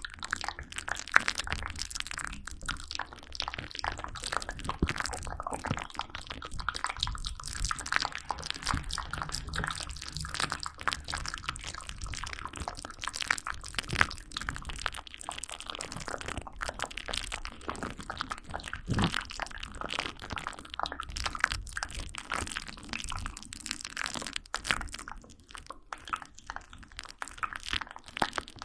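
Close-miked ASMR trigger sounds: a dense, unbroken run of small clicks, crackles and crunches.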